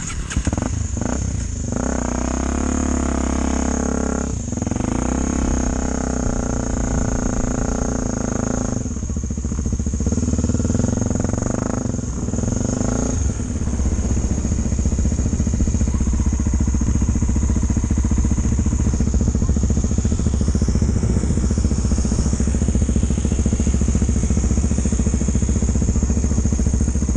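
Tornado motorcycle engine running, its pitch rising and falling with the throttle for the first dozen seconds, then running steadily at a low note. A steady high-pitched tone runs underneath throughout.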